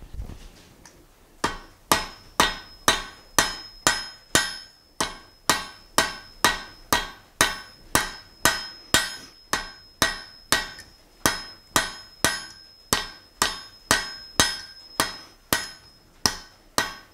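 Blacksmith's hand hammer striking a red-hot steel bar on an anvil at a steady pace of about two blows a second, each blow with a high ring, drawing out a taper at the bar's tip. The hammering starts about a second and a half in.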